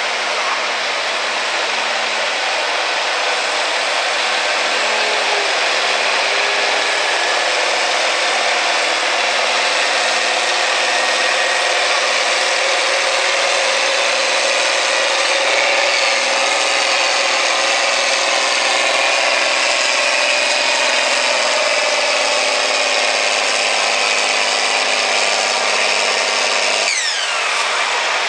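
John Deere 4440 tractor's turbocharged six-cylinder diesel running hard at full throttle, dragging a weight-transfer pulling sled down the dirt track. Near the end the engine drops off with a falling pitch as the pull ends.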